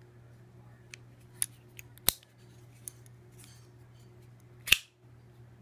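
Matt Diskin Fire folding knife being worked open and shut: a series of sharp metal clicks and snaps from the blade and its lock, with a faint scrape in the middle and the loudest snap near the end.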